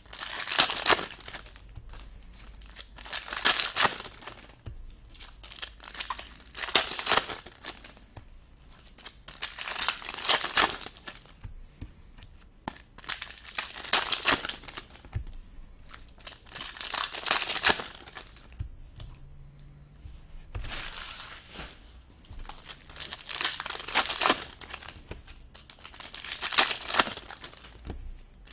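Foil packs of hockey trading cards being torn open and crinkled, one after another, in nine separate rips about three seconds apart.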